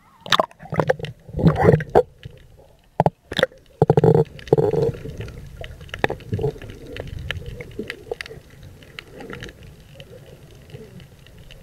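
Water splashing and sloshing against a camera held at the sea surface, with sharp knocks and splashes over the first few seconds, then a muffled low rumble of water as the camera goes under.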